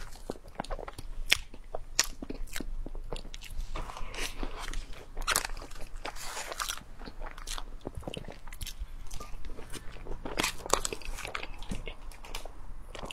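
A metal spoon scraping and clicking against the inside of a plastic tub in quick, irregular strokes, close-miked, with mouth sounds of eating.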